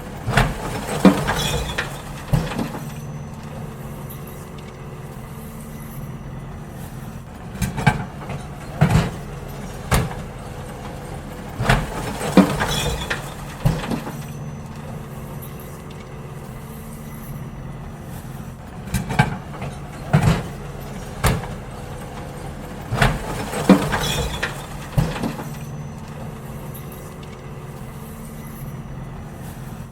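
Garbage truck idling steadily, with repeated clusters of bangs and clatters every few seconds as bins are tipped and knocked against the truck while being emptied.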